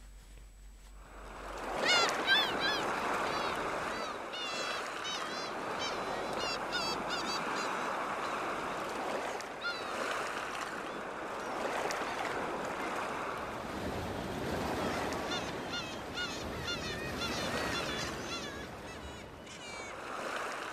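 Ocean surf washing steadily, with runs of short, high bird calls over it, starting about two seconds in: a beach ambience sound effect.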